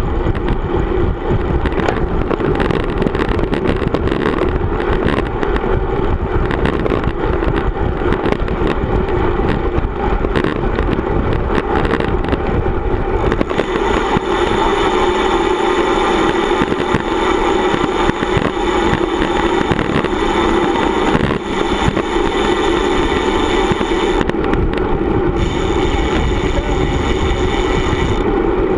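Wind rushing over an action camera's microphone on a road bike at speed, mixed with tyre noise on asphalt: a loud, steady rush. A higher whir joins about halfway through and drops out briefly near the end.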